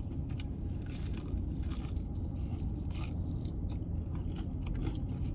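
Close-up biting and chewing of crispy fried chicken wings: scattered short crunches of the breaded skin. Under them runs a steady low hum from the car's running air conditioning.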